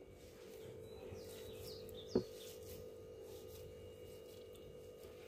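Quiet background with a few faint high bird chirps, a steady low hum, and one short knock about two seconds in.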